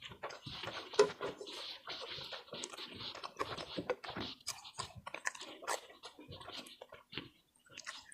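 Close-miked eating sounds: chewing on ketupat rice cake, chicken opor and fried potato sambal, a dense run of small wet clicks and crackles with a few louder smacks.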